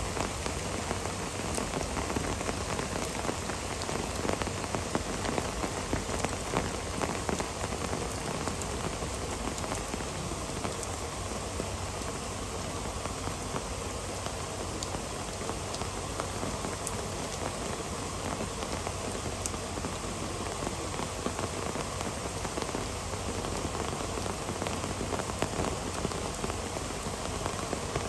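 Heavy rain pouring down steadily: a dense, even hiss of rain on surfaces with scattered sharper drop ticks.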